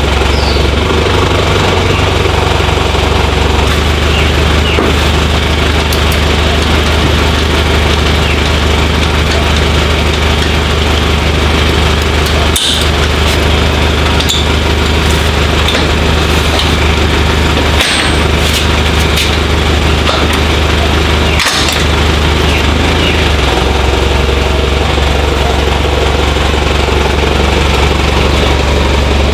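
Tow vehicle's engine idling steadily behind the caravan, with three short sharp knocks at the hitch as the caravan is coupled on.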